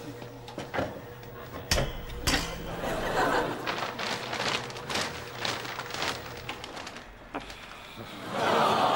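Laundry rustled and pulled out of a front-loading washing machine, with a few sharp knocks against the machine. Near the end a studio audience bursts into laughter.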